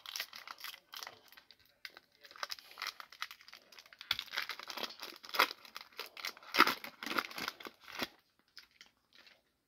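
Foil wrapper of a football trading card pack crinkling and tearing as it is opened by hand, in irregular crackles that are loudest from about four to eight seconds in.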